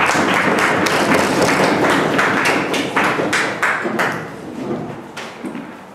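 A small audience applauding, a dense patter of many overlapping strikes that thins out and fades after about four seconds.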